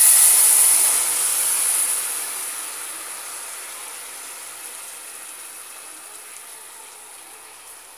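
Hot sugar caramel in an aluminium pot hissing and sputtering as a cup of hot water is poured into it, the water flashing to steam on the molten sugar. The hiss starts loud and slowly dies away.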